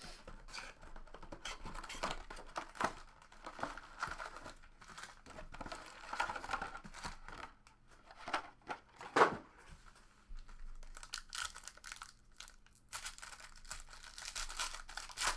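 Packaging of a 2015 Panini Select soccer trading card box being torn open: plastic wrapper crinkling and ripping in irregular spurts, with one sharper, louder rip or knock about nine seconds in.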